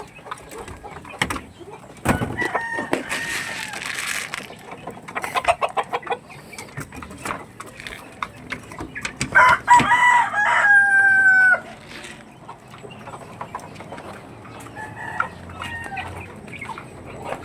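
Backyard chickens clucking, with a rooster crowing loudly for about two seconds near the middle.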